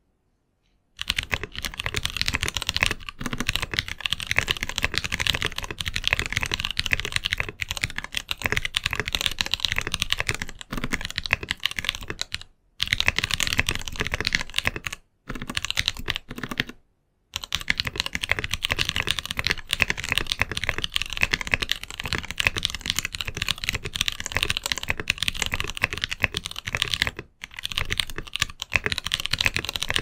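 Fast continuous typing on a Novel Keys NK65 Entry Edition mechanical keyboard. Its switches are lubed tactile frankenswitches, Nightwalker Solaris housings with Okomochi stems, and its stabilizers are plate-mounted. The typing stops briefly a few times.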